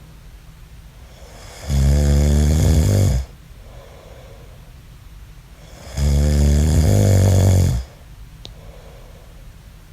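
A man snoring in deep sleep: two loud snores, each lasting a second and a half to two seconds, about four seconds apart, with quiet breathing between them.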